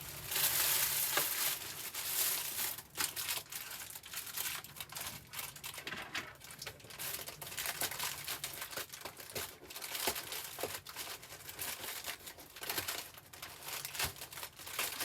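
Irregular crinkling and rustling of something being handled at close range, with many small scattered clicks and taps.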